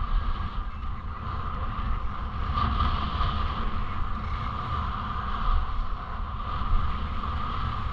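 Wind buffeting the microphone of a camera carried by a moving skier, over the steady scraping hiss of skis sliding on packed snow.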